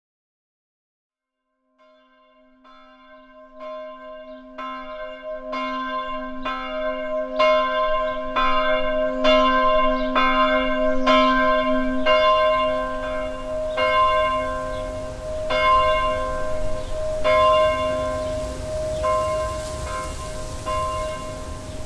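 A church bell tolling, about one stroke every three-quarters of a second, each stroke still ringing when the next one comes. The strokes swell in about two seconds in and slow to about one every second and a half near the end.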